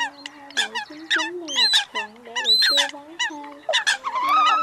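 Eurasian coots calling: a quick run of short, nasal, honking notes, several a second and some overlapping, with a longer call near the end. It is a recording of the kind played as a lure for night net-trapping of migrating birds.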